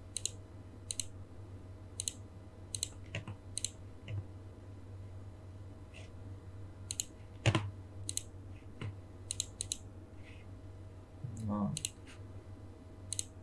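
Computer mouse clicking: a dozen or more short, sharp clicks, many in quick pairs, scattered irregularly over a steady low hum.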